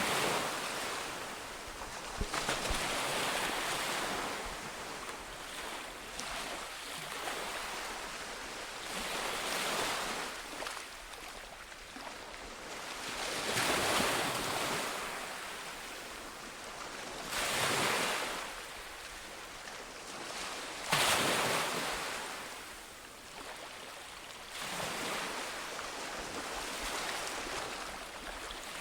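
Ocean waves breaking and washing on a beach, a steady hiss of surf that swells with each wave every few seconds, with a sharper wave crash about 21 seconds in.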